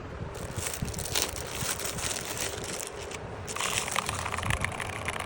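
A dense run of small clicks and crackles from handling the Mountain Everest 60 mechanical keyboard and its accessories. It gets thicker about three and a half seconds in.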